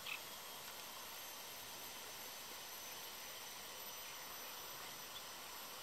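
Faint, steady outdoor background hiss with thin, high-pitched steady tones running through it, and a short, high chirp right at the start.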